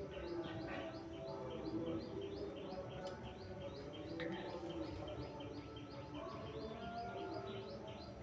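A bird chirping over and over, short high chirps about three a second, over a low, uneven background hum.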